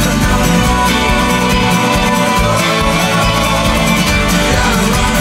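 Background music with plucked guitar.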